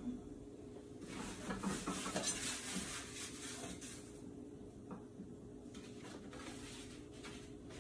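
Dishes and containers clattering and knocking as they are shifted about on a kitchen cabinet shelf, busiest in the first half, then a few single knocks. A steady low hum runs underneath.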